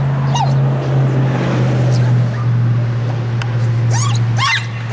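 Young dog giving excited, high-pitched yips and barks during tug and bite work, one short yelp about half a second in and a quick cluster near the end. A steady low hum runs underneath.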